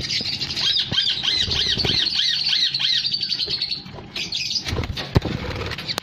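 Budgerigar chicks in a clay nest pot giving a quick run of about a dozen repeated high chirping calls, about three a second, which stop about four seconds in. A few sharp knocks follow near the end.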